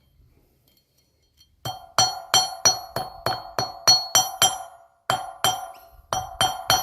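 Hammer blows on annealed steel against a steel block, about three a second, each strike ringing, starting about a second and a half in and pausing briefly twice.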